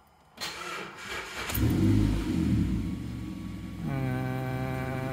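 A 2011 Mazda 3's 2.0-litre four-cylinder engine cranking briefly and starting, heard from inside the cabin. The revs flare about two seconds in, then settle to idle. A steady buzzing tone joins near the end.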